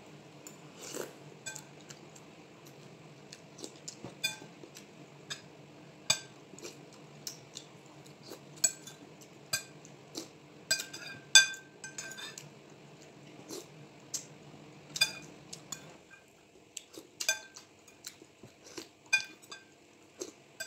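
Metal spoon clinking against a ceramic soup bowl in sharp, irregular clinks, about one or two a second, as spoonfuls are scooped up. A low steady hum runs underneath and stops about three-quarters of the way through.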